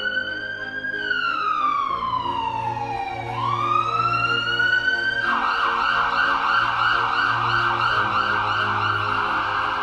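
Electronic emergency-vehicle siren: a slow wail that rises, falls and rises again, then about five seconds in switches to a rapid warbling yelp. Low background music runs underneath.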